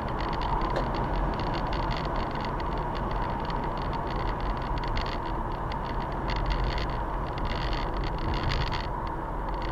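Car keys jingling and rattling in quick, uneven clusters over steady road rumble inside a moving car's cabin. The keys are the cause of the rattle heard in this dash cam recording.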